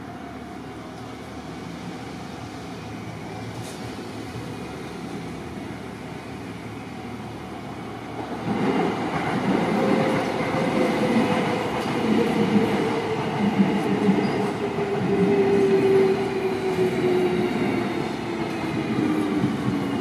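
Keio Line commuter train crossing the road from about eight seconds in, its wheels rumbling over the rails. An electric motor whine falls slowly in pitch as the train slows.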